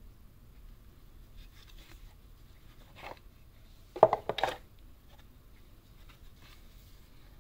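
Hard plastic display case of a die-cast model car clacking as it is handled. It gives a short knock about three seconds in, then a loud quick cluster of several clacks a second later. Faint rustling of gloved hands fills the rest.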